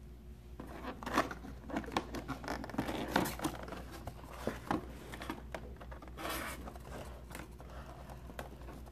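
A cardboard box being opened by hand: the lid and inner flaps scraping and rustling, with irregular scratches and small taps that start about half a second in.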